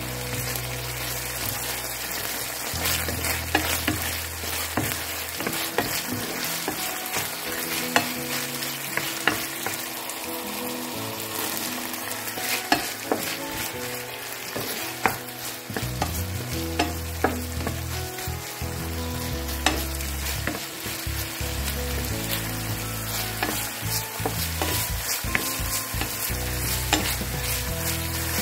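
Chicken, then sliced onion and leek with it, frying and sizzling in oil in a non-stick pan while a wooden spoon stirs and turns it. Sharp knocks of the spoon against the pan come now and then.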